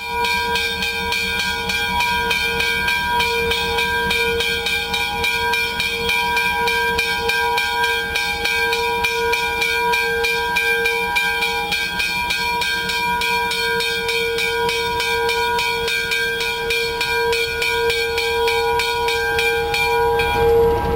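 A diesel switcher locomotive's bell ringing steadily, stroke after stroke, as the warning that the locomotive is moving. A low engine rumble runs underneath.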